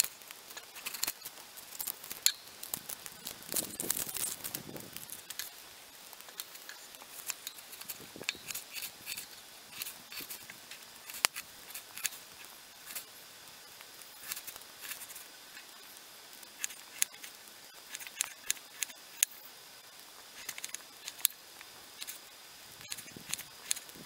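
Kitchen knife cutting and chopping an onion on a wooden cutting board: irregular sharp taps and knocks of the blade against the board.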